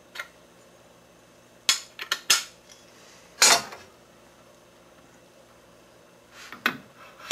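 Metal clinks and knocks from an aluminium miter gauge bar and its steel magnet holder rod being handled and set on a table saw top: a light click at the start, a quick cluster of knocks about two seconds in, a louder scraping clatter about three and a half seconds in, and another knock near the end.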